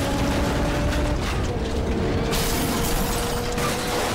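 A crashed car tumbling and sliding on its side along the road, metal grinding and scraping on the asphalt in a continuous rattling din, with a few long held tones over it.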